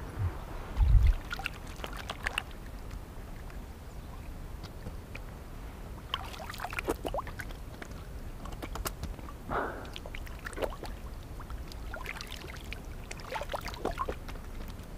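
Water splashing and sloshing in short, irregular bursts as someone moves across a pond, with a dull thump about a second in.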